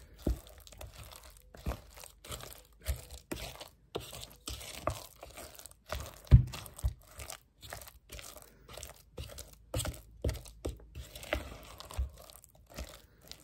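Wooden spoon mixing a thick lentil paste with chopped onion, coriander and chili in a bowl, in irregular strokes, with one louder thump about six seconds in.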